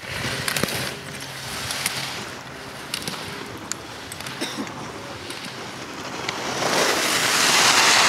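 Slalom skis scraping and carving on hard-packed snow: a steady hiss that swells from about six seconds in as the racer comes close.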